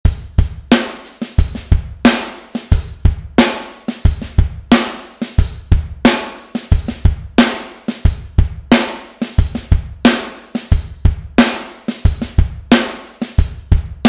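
Electronic drum kit playing a steady groove: kick drum and eighth-note hi-hat, loud snare accents on the backbeat and quiet snare ghost notes between them.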